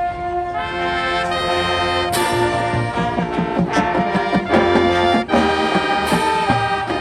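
Marching band brass and percussion playing: a held brass chord, then more horns enter and build, with drum hits and a sharp crash about two seconds in.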